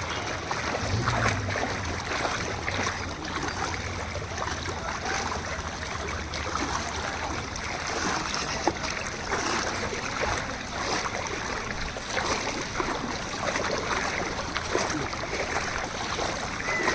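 Floodwater rushing and splashing steadily, with a low steady hum underneath.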